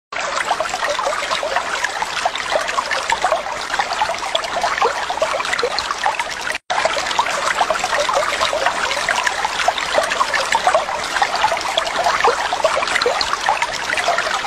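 Steady trickling, bubbling water with a constant patter of small gurgles, broken by a brief cut about six and a half seconds in.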